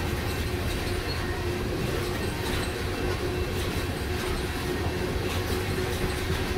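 Freight train cars passing close by at speed: steel wheels rolling on the rails in a steady, continuous rush of noise, with a faint steady whine throughout.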